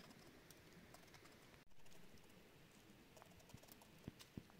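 Faint, crisp clicks of a kitchen knife slicing rounds off a zucchini held in the hand, with a few soft knocks near the end.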